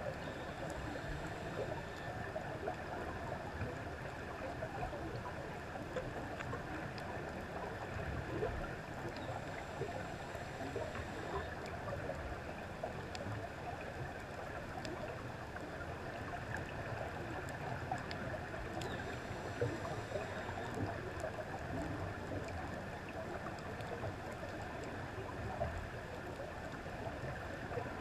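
Underwater reef ambience heard through a camera's waterproof housing: a steady muffled rushing, with faint scattered clicks.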